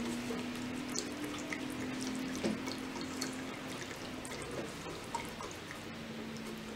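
A silicone whisk stirring thickening béchamel sauce in a saucepan: soft wet sloshing with many small ticks of the whisk against the pot.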